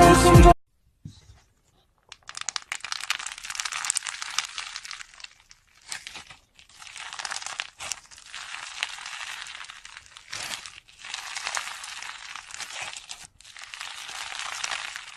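Slime being squeezed and stretched by hand, crackling with many small clicks and pops, in several bursts a few seconds long.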